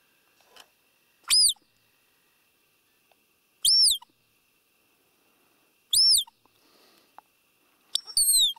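Roe deer call (hand-blown squeaker) sounded four times about every two seconds, each a short high pip that rises then falls in pitch, the last breaking into a double note sliding down. It imitates a roe doe's call during the rut, to draw a buck in.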